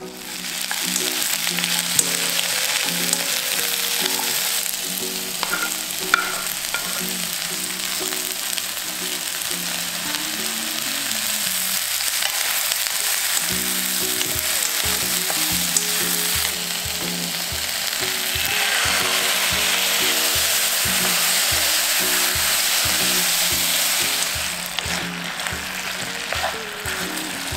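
Sausage pieces, onion and bell peppers frying in a hot pan with a steady sizzle as they are stirred, with a few sharp clicks. The sizzle grows louder about two-thirds of the way through.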